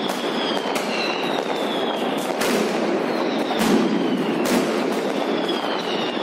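Many fireworks going off at once across a city: a steady crackle and rumble of firecrackers and rockets, with a few sharper bangs in the middle, the loudest about three and a half seconds in. High whistles falling in pitch sound over it several times.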